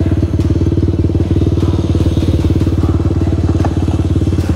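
TVS Apache motorcycle with a single-cylinder engine, idling steadily with an even, rapid pulse.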